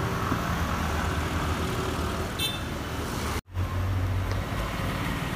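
Steady street traffic noise from road vehicles, with a brief high-pitched beep about two and a half seconds in. The sound breaks off at a cut, and a steady low hum follows.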